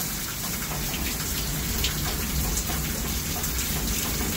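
Heavy rain falling steadily, a dense even hiss with scattered sharper ticks of single drops striking close by.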